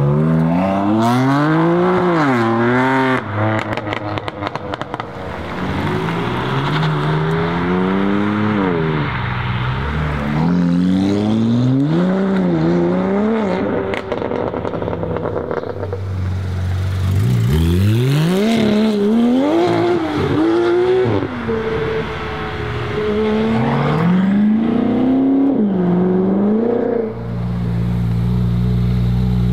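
Sports cars accelerating hard past one after another, engines revving up through the gears with rising pitches that drop at each shift. A quick run of exhaust crackles and pops comes about three seconds in. Near the end a car runs close by at low, steady revs.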